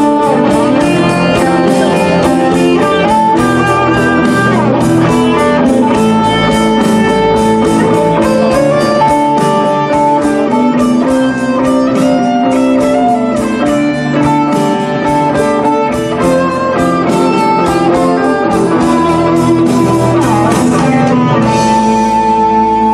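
Rock band playing live, electric guitar over a steady beat. About a second before the end the beat stops and a held chord rings on.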